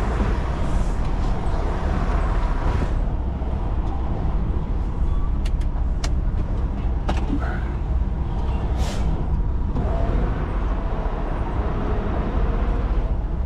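Semi truck's diesel engine running at low speed while reversing, with a few sharp clicks in the middle and a short hiss about nine seconds in.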